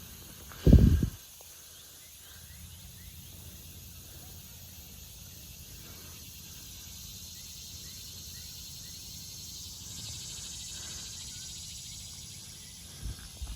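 Open-air rural background with insects chirping and buzzing steadily. A short, loud, low blast of wind or breath hits the microphone about a second in.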